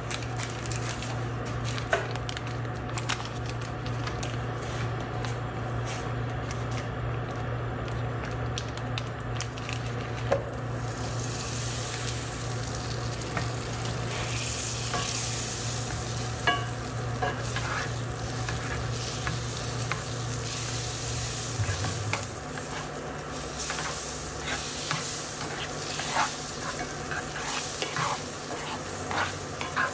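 Butter melting in oil in a cast-iron skillet, beginning to sizzle about a third of the way in, with a spatula scraping and tapping the pan near the end. A steady low hum underneath stops about two-thirds of the way in.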